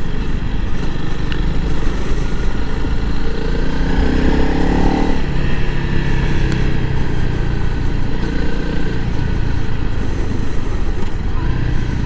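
Honda CRF300L Rally's single-cylinder four-stroke engine running under way as the bike is ridden over the gravel river bar. It revs up about four seconds in, then eases back to a steady run.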